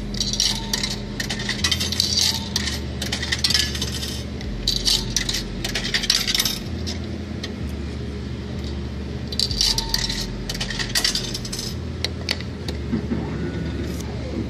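Coins clinking and dropping through a soda vending machine's coin mechanism, in a series of short jingling bursts.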